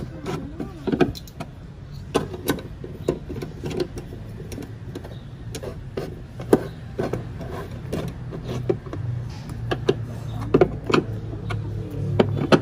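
Irregular sharp clicks and taps of a T-handle socket wrench working a tail-lamp mounting bolt into a Toyota Avanza's body, metal on metal with the lamp housing knocking. A low steady hum comes in about nine seconds in.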